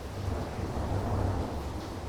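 Rolling thunder: a deep, low rumble that swells about half a second in and eases off near the end.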